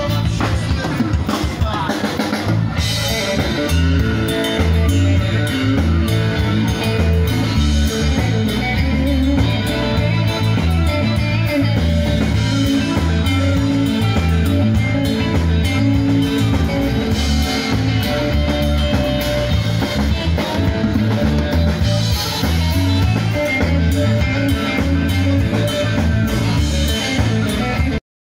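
Small live rock band playing through a PA: a drum kit keeping a steady beat under an electric guitar. The sound cuts off abruptly near the end.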